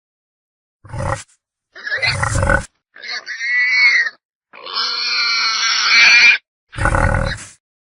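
Wild boar calling: two short, deep grunts, then a higher squeal about three seconds in and a longer, louder squeal around five seconds in, followed by more grunts near the end.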